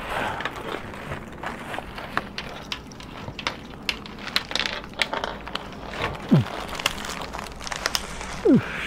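Rustling and crinkling of fishing gear and a backpack being handled and emptied, with a run of small irregular clicks and knocks from tackle and plastic items. Two short squeaks slide down in pitch, one about six seconds in and one near the end.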